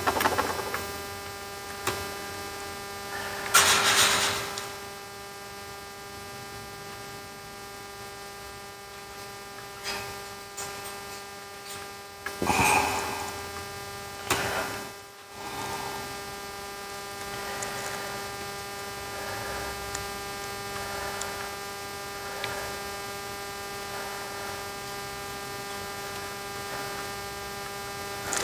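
Steady electrical mains hum made of many evenly spaced tones, with a few short hisses about four seconds in and again around thirteen and fifteen seconds in.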